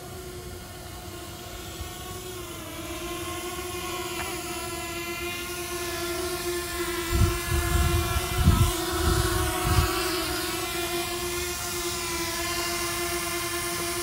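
Hubsan Zino Mini SE drone hovering, its propellers giving a steady pitched hum that grows gradually louder as it drifts closer. A few low thumps come between about seven and ten seconds in.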